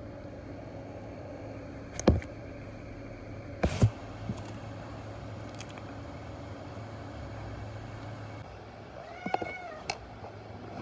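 A sharp knock about two seconds in and a quick double knock about four seconds in, then a kitten gives one short meow near the end.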